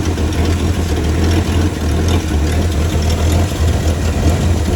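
AMC 287 V8 idling steadily through a single Super 44 muffler, warm and running smoothly.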